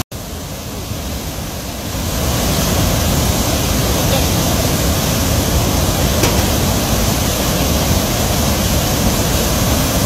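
Turbulent floodwater of a river in spate rushing and churning past a barrage's gates, a loud steady rush of water. The sound drops out for an instant at the start and is softer for about two seconds before settling at full level.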